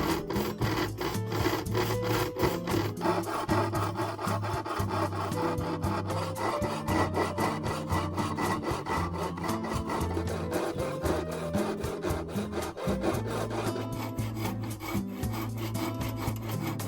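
Hand saw cutting hard nara oak in quick, even back-and-forth strokes, with background music playing under it.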